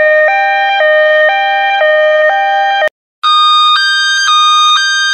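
Two-tone ambulance siren switching between two pitches every half second, cutting off abruptly with a click just under three seconds in. After a brief silence, a higher-pitched two-tone siren starts and alternates at the same pace.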